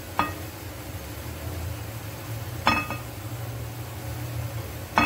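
Glass clinking on glass: a small glass bowl knocks against the rim of a glass mixing bowl three times, about two and a half seconds apart, each a short ringing clink, as cooked lentils are tipped and scraped out of it. A low steady hum runs underneath.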